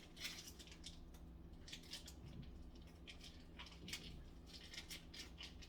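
Faint rustling and a few light clicks from kitchen items being handled, over a low steady hum.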